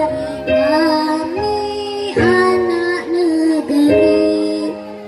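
A young girl singing a slow song through a microphone and PA, in long held notes with a slight waver, over sustained electronic keyboard chords.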